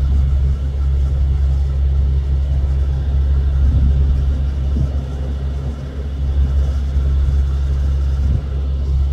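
Steady low rumble of an idling engine, an even hum that holds without change.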